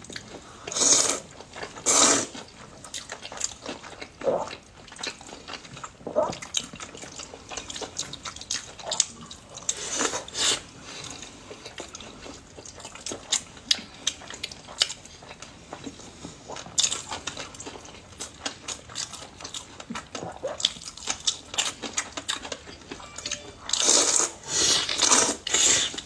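Close-up eating sounds: noodles in black bean sauce slurped in short loud bursts, a few times early on and in a quick run near the end, with wet chewing and smacking between.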